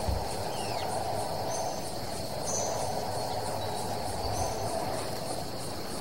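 Forest insects: a steady high buzz with a quick pulsing trill of about three beats a second above it. A few short high whistled bird notes come through, with one falling note near the start.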